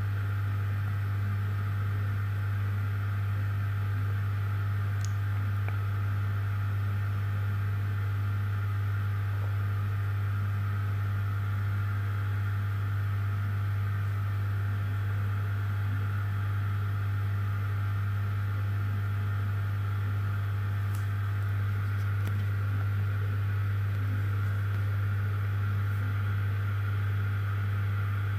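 Refrigerator running with a steady low hum and a fainter higher whir above it, unchanging throughout.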